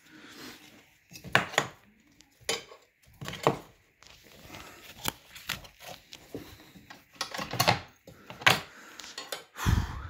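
Irregular clicks, clinks and knocks of a seat belt's metal buckle and plastic trim being twisted and worked through a slot in a car's rear seat frame, with a heavier thump near the end.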